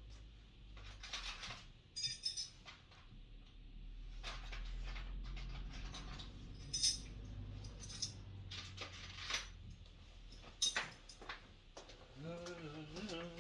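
Metal hand tools clinking and rattling, with a few sharp clinks among softer handling sounds, as spanners are picked up and worked on the heater's bolts.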